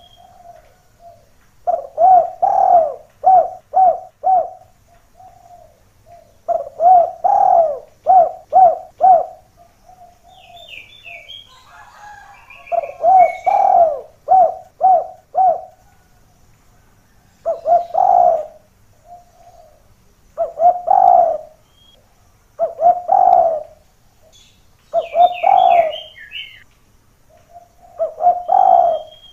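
Spotted dove (derkuku/tekukur) cooing in repeated phrases of several coos, a pause of a second or two between phrases. A small bird gives two brief runs of high, falling chirps, about ten seconds in and again near the end.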